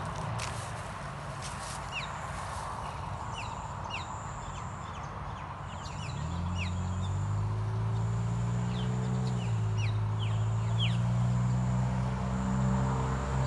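Birds chirping in many short calls, over a high steady whine that comes and goes. From about six seconds in, a low engine hum rises and becomes the loudest sound, dipping in pitch partway through.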